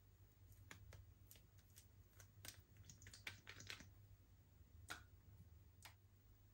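Slime being worked by hand, giving quiet sticky clicks and small pops, with a quick run of them about three seconds in.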